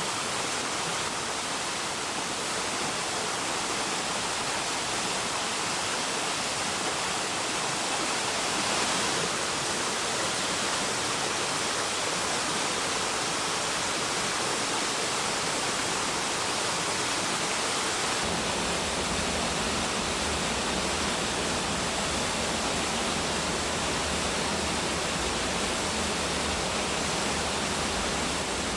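Waterfall: steady rushing of falling water. A deeper low rumble joins in about two-thirds of the way through.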